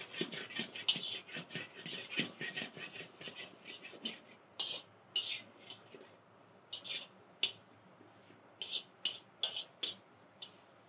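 A metal spatula scraping and knocking against a wok while shrimp and vegetables are stir-fried: a quick run of scrapes for the first few seconds, then separate sharp scrapes about every half second.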